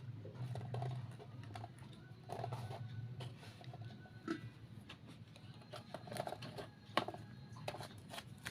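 Hands working on a small craft model: irregular light clicks and taps.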